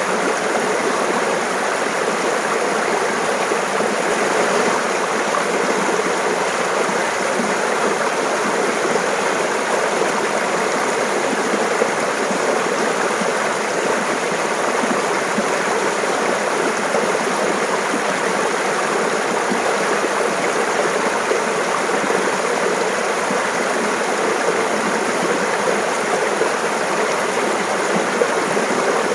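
Mountain stream babbling and splashing over rocks, a steady, even rush of running water.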